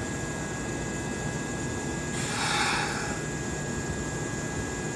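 Steady hum and hiss of a Kintetsu electric train standing at a station platform, with a steady high-pitched tone throughout. A hiss about two seconds in lasts roughly a second.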